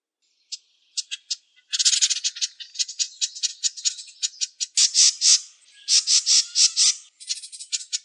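A wren singing a long, fast song of high notes and rattling trills. A few separate notes come about half a second in, and the rapid trilling starts just before two seconds. It breaks off briefly about seven seconds in and then goes on.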